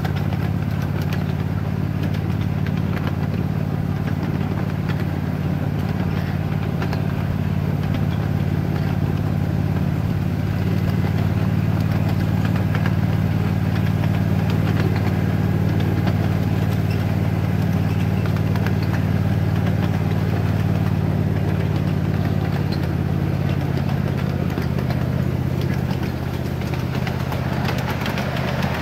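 Ride-on miniature railroad train under way along its track, with the steady low drone of the locomotive's engine.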